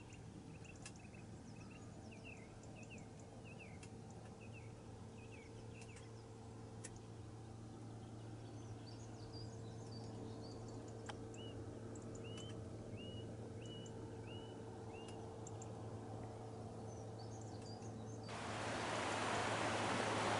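Small birds calling outdoors with repeated short chirps over a faint steady low hum. About 18 seconds in, this cuts to the louder, steady rush of water trickling and splashing down a mossy rock face.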